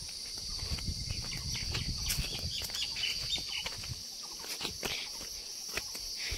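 Steady high-pitched chirring of insects, with scattered footsteps and a low rumble that dies away about four seconds in.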